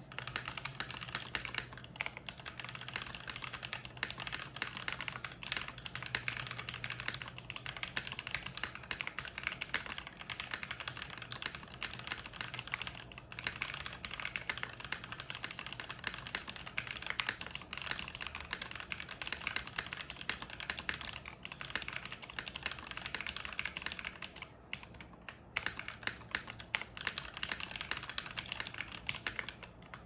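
Continuous two-handed typing on a custom tenkeyless mechanical keyboard: lubed SP-Star Meteor White switches on 65 g springs, in a POM plate with o-ring gasket mounting and Drop DCX keycaps. The keystrokes come in a dense run of clacks with a few brief pauses.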